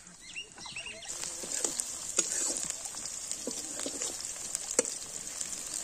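Fish and sliced onion frying in oil in a wok over a wood fire: sizzling and crackling that thickens about a second in, with a metal spatula knocking and scraping against the wok several times. Birds chirp briefly at the start.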